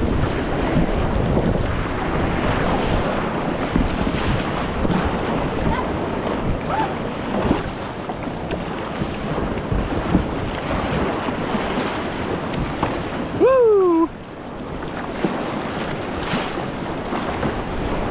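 Whitewater of a long river rapid rushing around a kayak, a steady churning noise with wind buffeting the microphone. About thirteen seconds in, a short, loud call with a falling pitch cuts in for about half a second.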